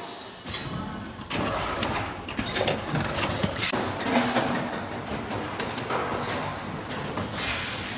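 Fully automatic servo bottle blow molding machine for 5 L and 10 L PET bottles running: clattering mechanical and pneumatic strokes, with short hisses of compressed air at intervals.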